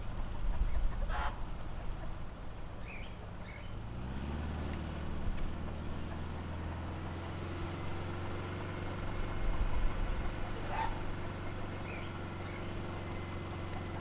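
An old car's engine running steadily as the car drives, its pitch stepping up about four seconds in and then holding. A few short animal calls sound in the background, and there are low rumbles around one second and ten seconds in.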